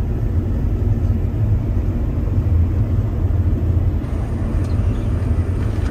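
Combine harvester running while it cuts a standing crop, heard from inside the cab: a loud, steady low drone of the engine and machinery.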